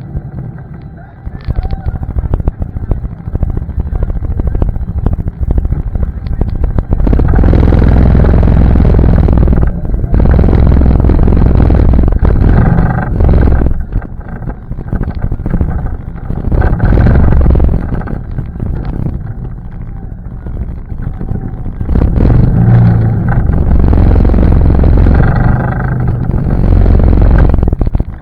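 ATV engine running on a trail, swelling and easing in long surges as the throttle is opened and backed off, with a heavy low rumble.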